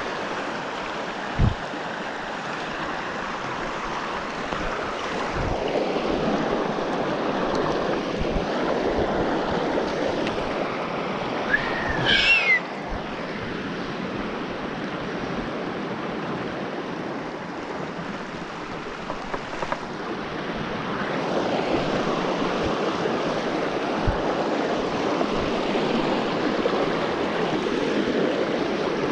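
Steady wash of rushing water from a river cascade. A single thump comes about a second and a half in, and a brief high chirp that rises and falls comes about twelve seconds in.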